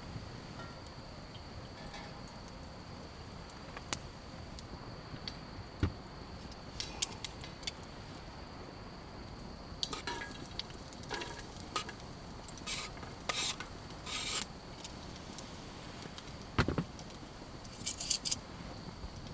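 Cooking in a pan over a campfire: scattered clicks and scrapes of a utensil stirring in the pan, with short bursts of sizzling in the second half.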